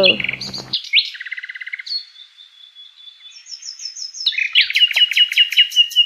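Nightingale song: a varied run of phrases, with quick chirps, a buzzy trill and a thin held whistle, then a fast series of repeated notes from a little past the middle.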